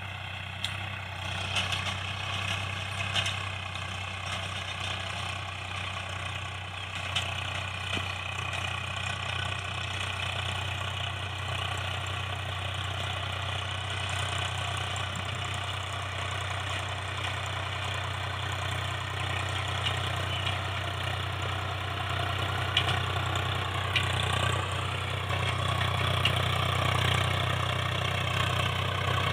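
Tractor's diesel engine running steadily, growing gradually louder toward the end, with a few light clicks and rattles.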